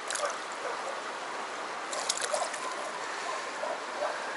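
Stream water running steadily over stones, with brief splashing at a landing net in the shallows: a short splash at the start and a cluster of splashes about two seconds in.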